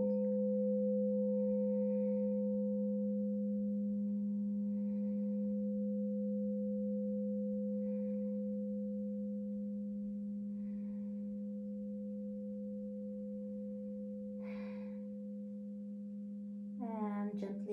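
Crystal singing bowl ringing a sustained, pure low tone with a fainter higher tone above it, slowly fading.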